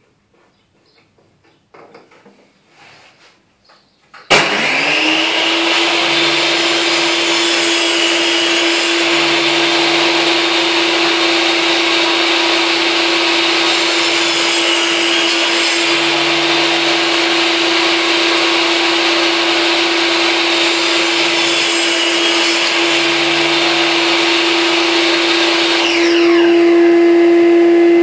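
Table saw switched on about four seconds in, running with a steady high whine; its pitch sags briefly twice as the blade crosscuts a whitewood board on a sled. Near the end the blade's whine falls away and a steadier hum is left running.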